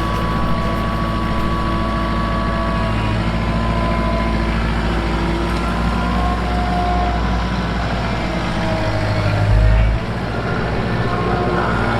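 Kubota L3940 tractor's diesel engine running steadily, swelling briefly near the end and then dropping back.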